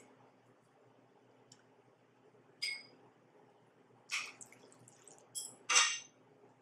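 Eating sounds from a noodle meal: a few short wet mouth and slurping sounds and chopstick clicks against a bowl and a pan, the loudest a brief wet sound near the end.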